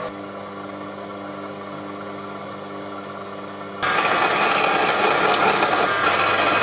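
Proxxon PD 250e mini lathe running with a steady motor whine; a little under four seconds in, the turning tool bites into the metal and a loud, even cutting hiss rises over the motor. The cut is smooth, without chatter, with the work supported by the tailstock centre.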